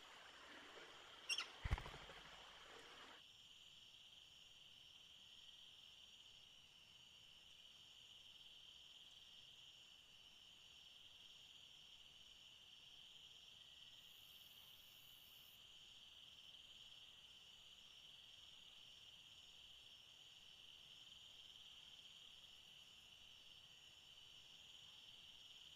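Faint, steady, high-pitched insect chorus, a continuous trilling drone that holds unchanged throughout. Two sharp clicks, the loudest sounds here, come close together about a second and a half in.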